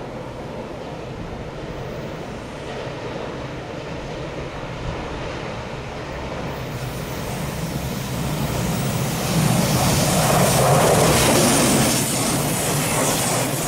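A train approaching on the track, its wheel and rail noise building steadily and loudest over the last third as it draws level.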